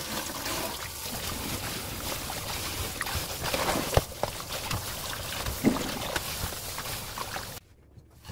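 Tap water running into a stainless steel sink and bowl as a bunch of wild chives is rinsed under the stream by hand, with one sharp knock about halfway through. The water sound cuts off suddenly near the end.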